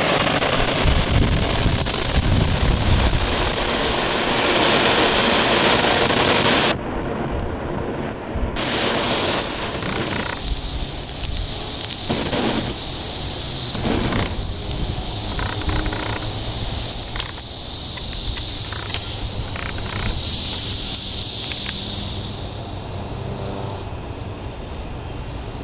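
Propane burner on a pole hissing steadily as it burns, dropping out for about two seconds early on and then coming back, with scattered crackles. The hiss fades near the end as the propane runs out.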